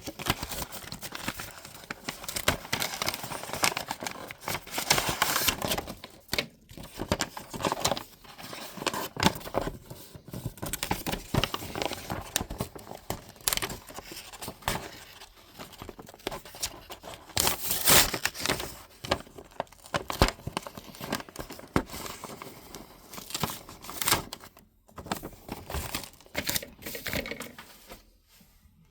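Packaging being handled and pulled open: irregular crinkling and tearing with sharp crackles and handling clicks, coming in uneven flurries.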